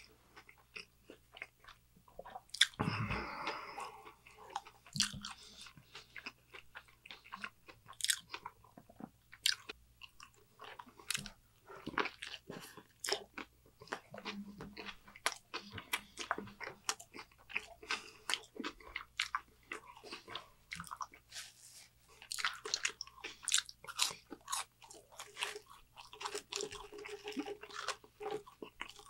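Close-miked chewing of a Burger King Whopper: a steady run of short mouth clicks, smacks and small crunches, with one louder, longer noise about three seconds in.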